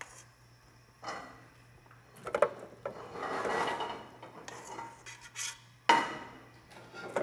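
A metal ladle clinking and scraping in a stainless steel stock pot as hot carrot soup is scooped out and poured into a blender jar. Several sharp clinks, with a longer rush of pouring about three seconds in.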